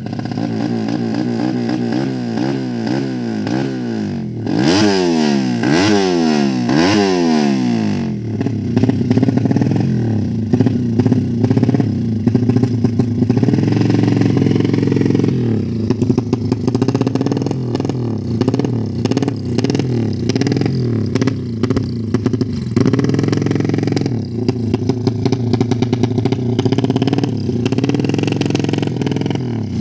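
Yamaha MX King motorcycle's single-cylinder four-stroke engine revved in several quick blips over the first eight seconds, then kept running steadily at a raised engine speed with small rises and falls.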